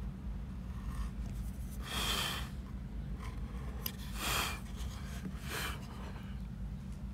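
Hand carving knife cutting into wood in three short strokes, about two, four and five and a half seconds in, with a light click just before the second.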